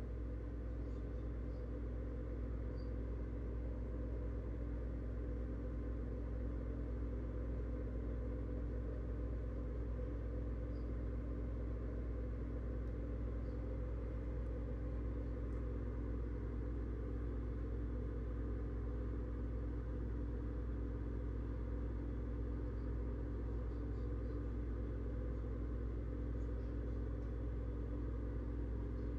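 Steady low mechanical hum with an underlying rumble, holding a few constant tones and never changing.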